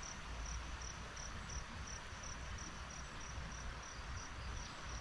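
Insects chirping in a steady high-pitched pulse, about three chirps a second, over a constant hiss of background insect and ambient noise.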